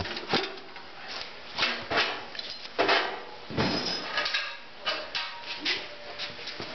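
Irregular metallic knocks, clicks and scrapes from hand work on a garden tractor's belt drive and pulleys, busiest about three seconds in.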